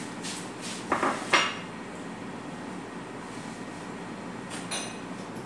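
Dishes and cutlery clattering at a meal table: a couple of sharp clinks about a second in, then a lighter, ringing clink near the end, over a steady low hum.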